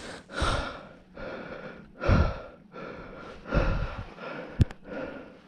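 A man breathing hard, in and out in quick succession, out of breath from fighting a big fish. A single sharp click sounds about four and a half seconds in.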